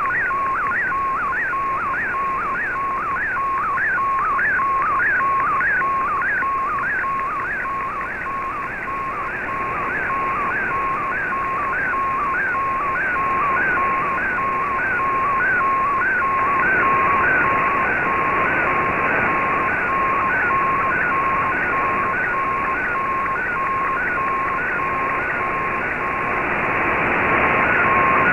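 Shortwave digital picture transmission received in AM on an Icom IC-R8600: a steady tone near 1 kHz with a warbling chirp repeating about twice a second as the lines of an image in MFSK picture mode come in. Shortwave static under it grows over the second half as the signal fades.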